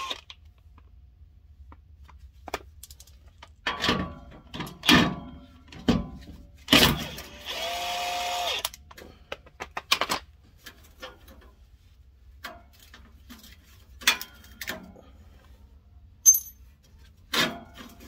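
Scattered clanks and knocks of gloved hands and tools working a truck's stainless exhaust pipe and band clamp loose. About seven seconds in there is one steady whir lasting about a second and a half.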